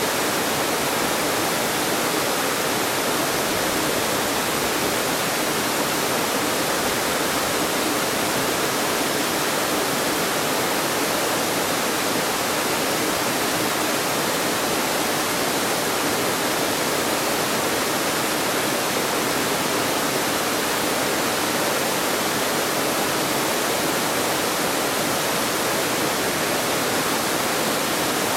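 Waterfall cascading over wide rock ledges into the pool below: a steady, full rush of falling water that never changes.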